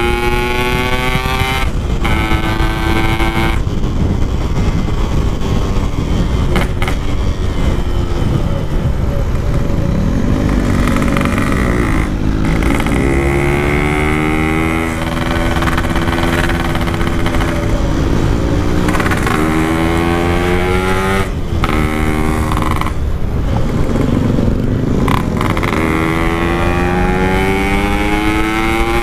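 Two-stroke Yamaha RX-King 135cc engine through a Packing Power exhaust, accelerating hard through the gears: the pitch climbs in each gear and drops briefly at each shift, several times over.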